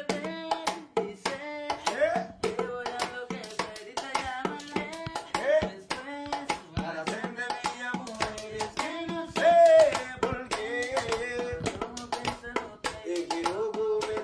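Music with a pitched melody over a dense run of sharp percussive clicks.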